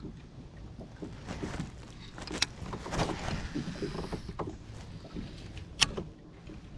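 Handling noises in a fishing kayak: scattered light knocks and rubbing against the hull, with two sharp clicks, the second one the loudest, near the end.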